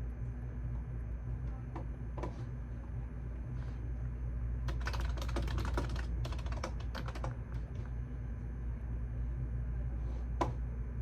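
Typing on a computer keyboard: a few scattered key presses, then a quick run of typing about halfway through lasting two or three seconds, then a few more isolated key presses, the sharpest near the end. A steady low hum lies underneath.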